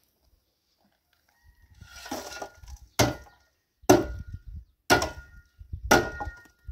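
Four sharp knocks about a second apart, each leaving a brief ringing tone, over a low rumble.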